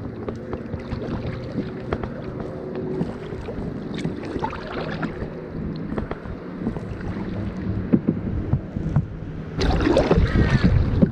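Kayak paddling: the blades dip and splash with each stroke, water drips off the paddle and laps against the plastic hull, with small knocks of the paddle shaft. The splashing gets louder about three-quarters of the way through.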